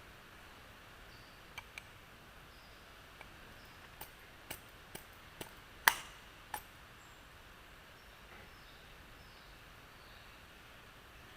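A series of sharp clicks and taps from small metal parts being handled and fitted while a governor is put back together, the loudest about six seconds in.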